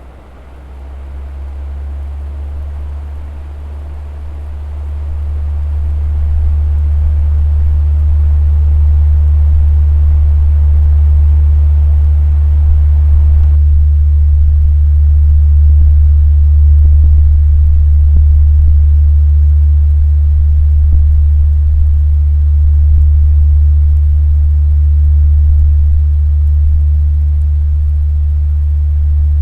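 Three-speed electric fan running: a loud, steady low hum with a rush of air. It builds up over the first several seconds, then holds steady.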